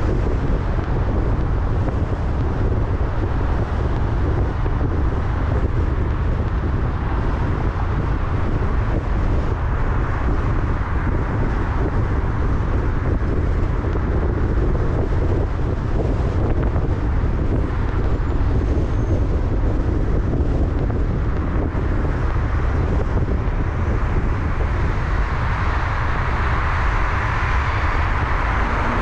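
A car driving through city traffic: a steady low road and tyre rumble with engine noise. A broader rushing sound swells in near the end.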